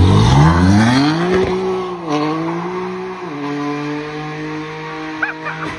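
BMW M3 launching hard with tyres squealing: the engine revs climb steeply, drop at two upshifts about a second apart, then hold steady and fade as the car pulls away.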